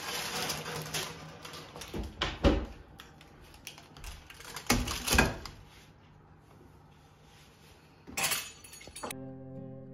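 Metal kitchen clatter as a pizza tray is taken out of an oven and set down on a gas hob: knocks and scrapes, with the loudest clanks about two and five seconds in and another burst near the end. Music comes in just before the end.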